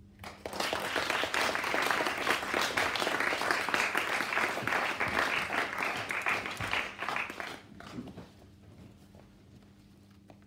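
A small audience clapping, starting about half a second in and dying away after about seven and a half seconds.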